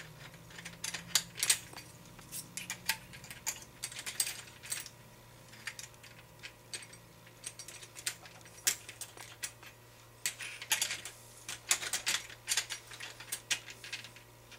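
Small metal brake parts of a 1/5-scale RC car clicking and clinking as they are fitted together by hand: many light, irregular clicks.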